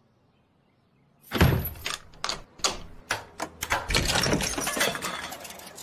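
Cartoon sound effects of crashing: a loud crash about a second and a half in, then a run of irregular bangs and clattering.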